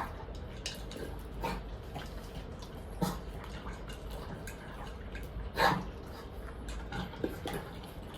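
A pug and a Chin–Shih Tzu mix dog eating their dinner: short mouth sounds at the bowl every second or two, the loudest about five and a half seconds in.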